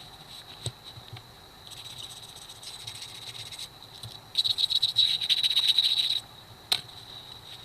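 Crickets trilling, a steady high chirring with fast even pulses. A nearby one gets much louder for about two seconds in the middle. A single sharp click comes near the end.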